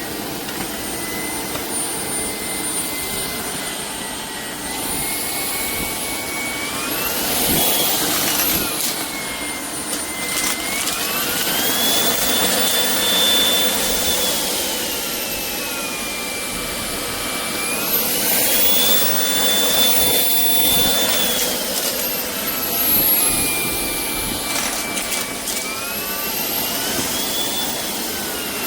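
Shark IP1251 cordless stick vacuum running, its motor whine rising and falling in pitch several times as the motor speeds up and slows down.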